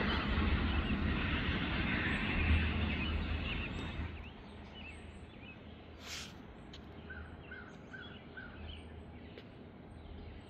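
A freight train's steady rolling rumble fades away as the train recedes, dropping off about four seconds in. Afterwards there is quiet outdoor ambience with birds chirping in short repeated calls, and a brief hiss about six seconds in.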